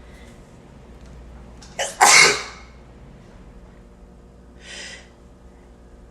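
A person sneezing once, loud and sudden about two seconds in, led by a brief sharp intake of breath. A softer breathy sound follows near the end.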